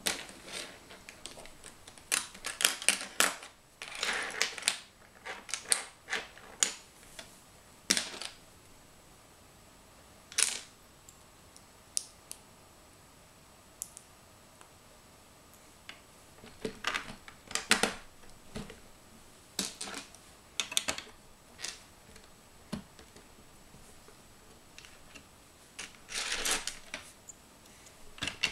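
Plastic LEGO bricks clicking and clattering as they are sorted through in a loose pile and pressed onto the model, in scattered bursts of sharp clicks with quiet pauses between.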